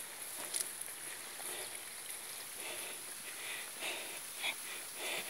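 Running water from a small spring-fed stream, a steady hiss, with the crunch of footsteps on the path about every half second in the second half.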